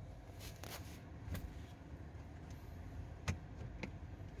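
Suzuki Jimny running with a steady low rumble while driving over rough ground, with a few short knocks and clunks.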